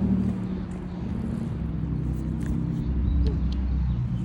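Old 1980s Lennox central air conditioner condenser running: a steady low hum of compressor and fan.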